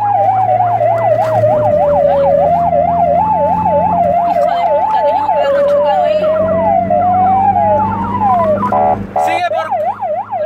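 Police car siren cycling through its patterns: a fast yelp at about four sweeps a second, a slow wail that falls and then rises, and a hi-lo two-note alternation in the middle, with a brief horn-like blast near the end before the yelp returns. A steady low engine hum runs underneath.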